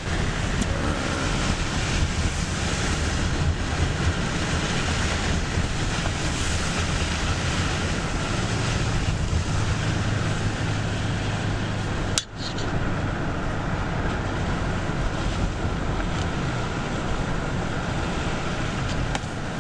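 Steady noise of a car driving on snowy city streets, heard from inside the cabin: engine hum and tyre and road noise, with a brief break about twelve seconds in.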